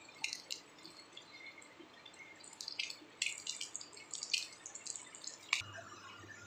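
Yellow croaker pieces pan-frying in oil: irregular crackles and pops of spattering oil over a faint sizzle. These stop abruptly about five and a half seconds in, and a low steady hum follows.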